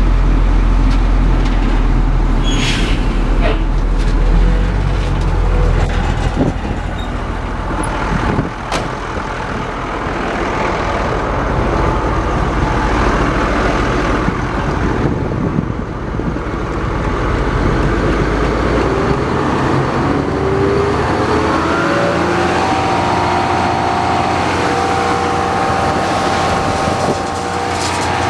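1997 Ford LNT8000 vacuum truck running with a loud, steady low rumble. About two-thirds of the way through, the rumble thins and a whine rises in pitch, then holds steady.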